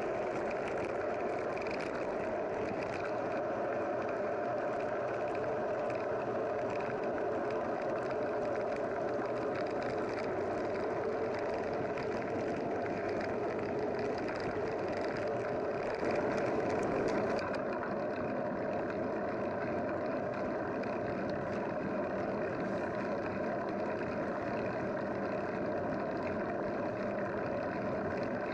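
Steady, continuous running noise of a road vehicle, briefly louder a little past the middle.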